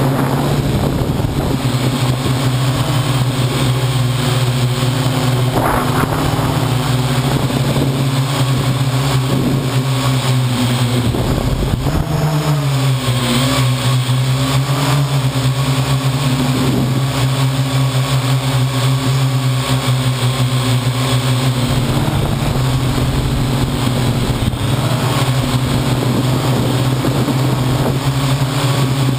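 Parrot AR.Drone quadcopter's four electric motors and propellers, heard from on board, buzzing steadily in flight. The pitch dips briefly about twelve seconds in as the drone manoeuvres, then recovers.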